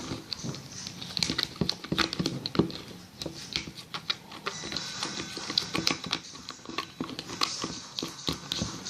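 A spoon clicking and scraping against a container while stirring a glue slime mixture: a rapid, irregular run of small taps.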